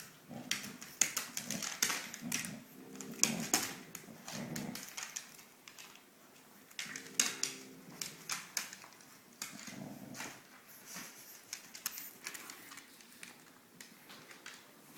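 A dog and a French Bulldog puppy playing, with a run of irregular clicks and taps and short low dog sounds mixed in.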